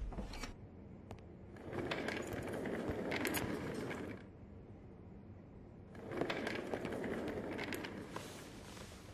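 Faint clicks and scuffs of a person walking across a room and sitting down, over a hiss that comes and goes in two stretches.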